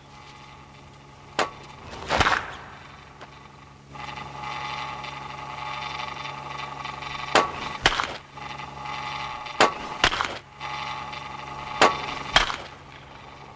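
A run of sharp knocks, mostly in pairs about half a second apart, over a steady drone of held tones that sets in about four seconds in.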